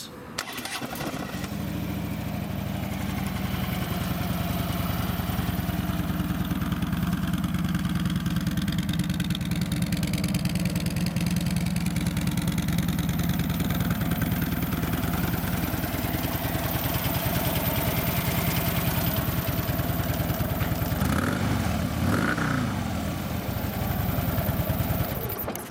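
A 2013 Harley-Davidson Tri Glide's 103-cubic-inch fuel-injected Twin Cam V-twin starts about half a second in and idles steadily through its twin exhaust pipes. A little after 20 seconds it revs up once and falls back to idle.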